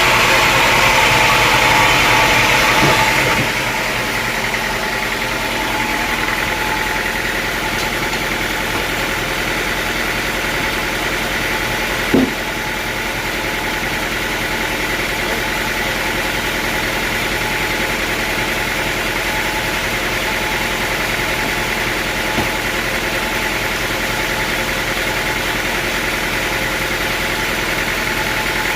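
Sawmill engine running steadily, louder with more hiss for the first few seconds before settling to an even drone. A single knock about twelve seconds in.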